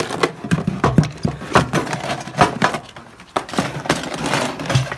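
Irregular clatter of plastic tubs, boxes and gold bangles being handled and set down: a quick, uneven run of knocks and clicks.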